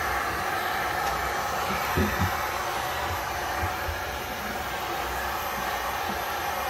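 Wagner heat gun blowing hot air steadily with a constant hum, drying a patch of joint compound on a ceiling.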